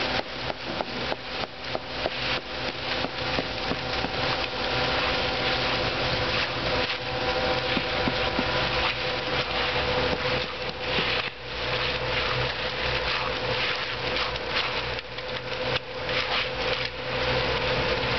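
A machine engine running steadily at a concrete pour, with irregular clattering and scraping knocks over it.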